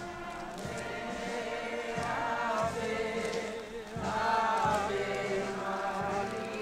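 A group of voices singing a hymn together, in long held notes that swell about two and four seconds in, with a few dull low thumps underneath.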